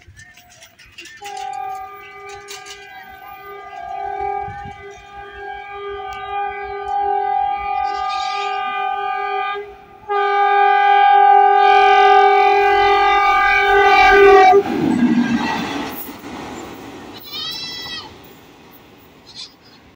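Train locomotive sounding its horn as a warning on the approach to a level crossing, in two long blasts: the first about eight seconds, the second about four and a half and louder as the train nears. As the horn cuts off, the noise of the train passing takes over and then fades.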